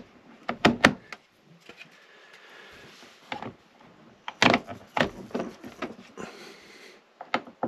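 Plastic lens covers being snapped onto a 12-volt LED ceiling light fixture: a few sharp clicks about a second in, a cluster of clicks and knocks around the middle, and two more near the end.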